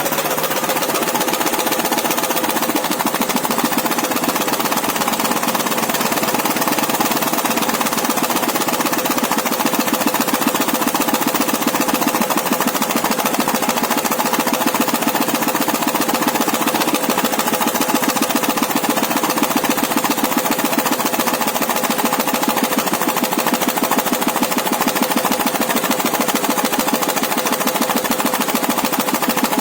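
Dnepr motorcycle's flat-twin engine running steadily with a fast, even clatter. It is firing on the left cylinder only. A knock can be heard in it, which the owner puts down to a loosened nut on the generator drive gear.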